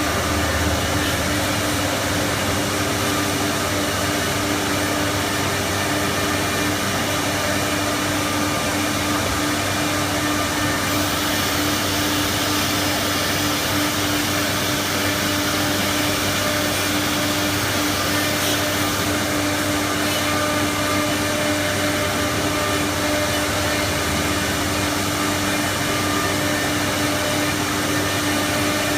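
4-axis CNC wood router running with a steady, even whir and a constant hum from its spindle and motors.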